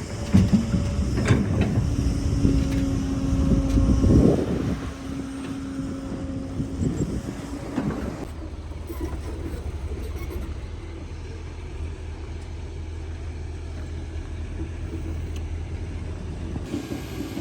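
Excavator's diesel engine working under load, with a steady whine and several clanks and knocks for the first four or five seconds, then dropping to a quieter steady low running for the rest.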